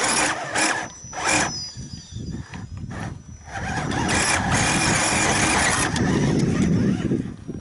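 Electric drivetrain of an RC scale crawler (Defender 90 body on a Gelände II chassis) whining as it climbs over limestone rock, with the tyres scraping on the stone. It comes in a few short bursts at first, then runs steadily for about three seconds from around the middle.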